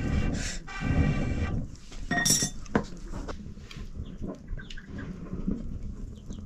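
Goats bleating: two long, steady calls in the first second and a half, followed by a brief high squawk and a few light clicks.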